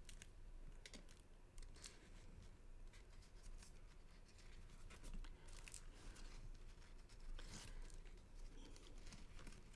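Faint rustling and light, scattered ticks of cardstock being handled: a folded pop-up card pressed shut while a die-cut paper piece is slid in and out of it.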